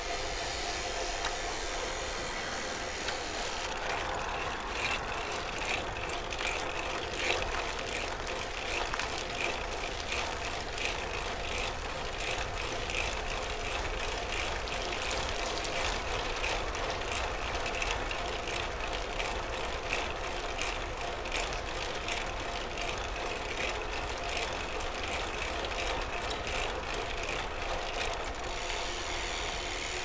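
Bicycle being pedalled along a road: steady tyre and road noise with a run of sharp, mechanical clicks from the drivetrain, about two a second, starting a few seconds in and easing off near the end.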